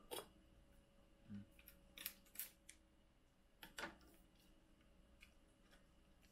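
Faint, scattered snips and clicks of scissors cutting open a plastic blister pack, with a small knock in between.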